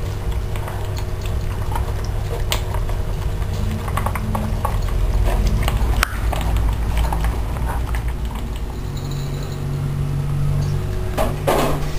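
Dogs feeding at their bowls: scattered wet clicks and crunches of mouths working at food, over a steady low hum.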